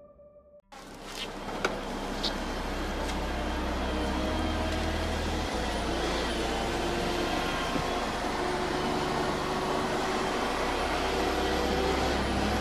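A heavy machine's engine running steadily, cutting in suddenly about a second in, with a few sharp clicks or knocks shortly after.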